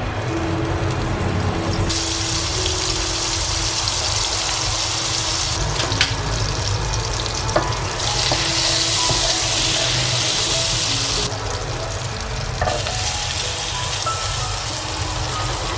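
Butter sizzling and bubbling in a hot nonstick frying pan as a wooden spatula stirs it and pushes halved garlic through it. The sizzle cuts out and comes back a few times, and there are two light knocks of the spatula against the pan.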